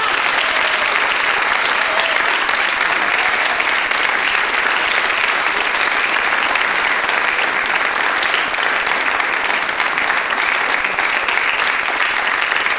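Theatre audience applauding, steady and sustained dense clapping.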